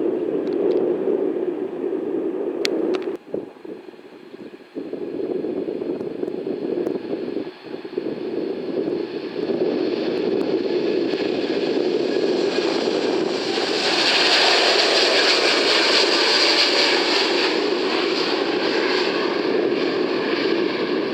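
Jet airliner passing close by: its engine noise builds from about halfway with a rising hiss and is loudest in the last third, over a steady low rumble that dips out briefly a few seconds in.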